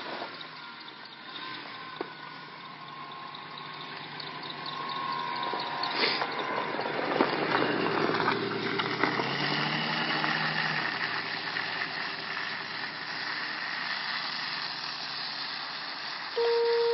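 A vehicle passing on a snow-covered road: its tyres hiss on the slush and its engine hum swells, peaks and slowly fades. A loud steady electronic tone starts just before the end.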